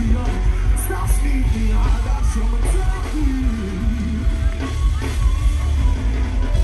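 Live dancehall music through a concert PA, heard from within the crowd: a heavy bass beat with a man singing into a microphone over it.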